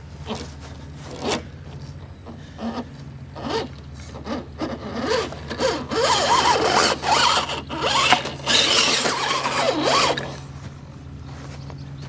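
Axial '55 Ford F100 RC crawler's electric motor and gears whining in short bursts of throttle. About halfway in it gives way to a longer, louder run of rising and falling revs, which cuts off near the end.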